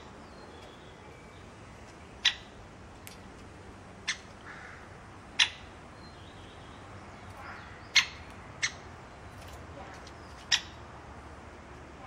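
Great spotted woodpecker at a hanging seed feeder: six sharp, short ticks, irregularly spaced one to two and a half seconds apart, two of them close together about two-thirds of the way through.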